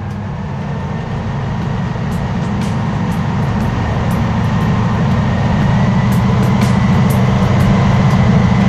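M18 Hellcat's newly rebuilt nine-cylinder radial engine running at low revs while the tracked vehicle drives, kept low for engine break-in. It is a steady low rumble with a faint steady whine above it and scattered light clicks, growing steadily louder.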